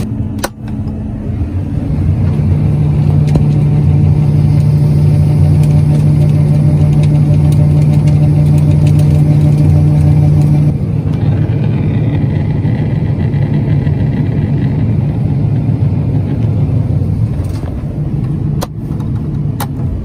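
John Deere 9500 combine's diesel engine running with the unloading auger emptying the grain tank into a truck. It is a steady, loud machine hum that shifts about ten seconds in, with a couple of sharp clicks near the end.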